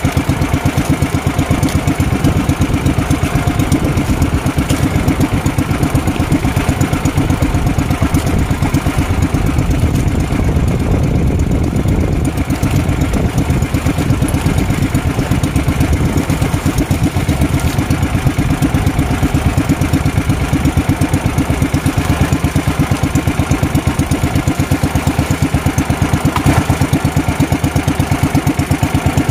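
Small motorized fishing boat's engine running steadily, with a fast, even firing pulse and no change in speed.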